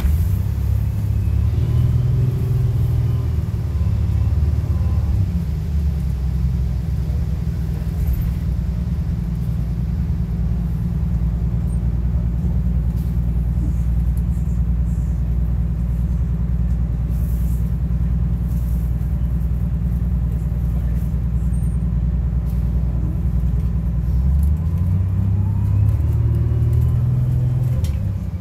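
MCI Classic transit bus's diesel engine and drivetrain heard from inside the passenger cabin: a steady low drone while cruising, with the pitch climbing as the bus accelerates near the start and again over the last few seconds. Light rattles from the bus body.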